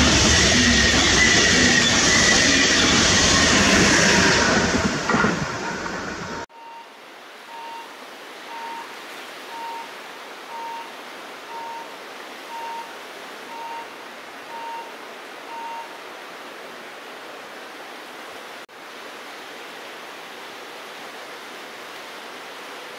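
SBB passenger train rolling past on curved track, its wheels running with a high steady whine, fading out about five seconds in. After a cut, a railway level crossing warning signal beeps about once a second for roughly nine seconds, then stops, leaving a faint steady hiss.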